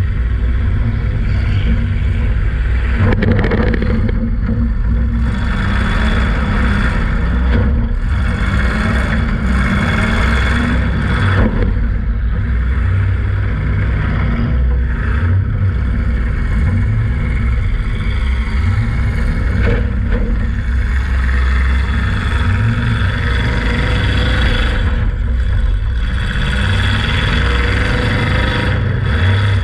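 Demolition derby car's engine heard from inside the cabin, running hard and revving up and down repeatedly, with a few sharp knocks along the way.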